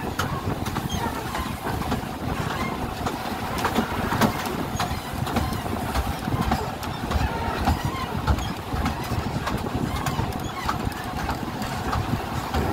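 Narrow-gauge railway carriage running along the track: a steady rumble and rattle with many irregular clicks and knocks from the wheels and running gear.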